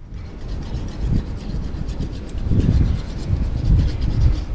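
Rubbing and scraping at a boat's deck-hatch frame as old sealant and glue are worked loose, over a low, uneven rumble of wind on the microphone.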